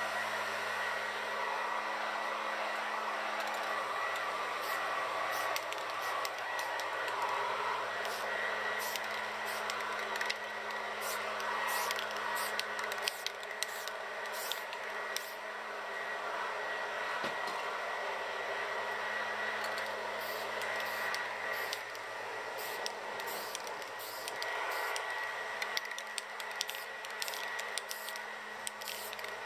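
Leaf blower running steadily with a constant hum. Over it, many short hisses of Rust-Oleum American Accents aerosol spray paint cans sprayed onto canvas in quick bursts, starting about six seconds in.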